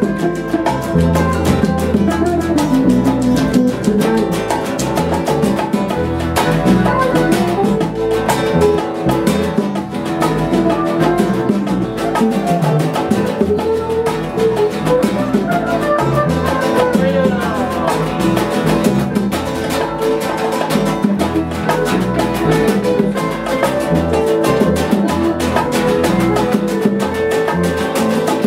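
Instrumental Cuban jam session: electric bass, electric and acoustic guitars and bongos playing a steady Latin groove without vocals.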